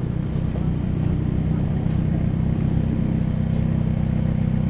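Mercedes-AMG CLA's turbocharged four-cylinder engine and exhaust running steadily at low revs as the car drives slowly away.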